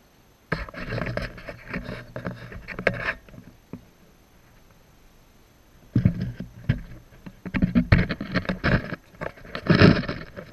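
Handling noise from the camera as it is picked up, moved and set down among the shoreline rocks: rubbing and a string of knocks against its body, in two bouts of a few seconds each.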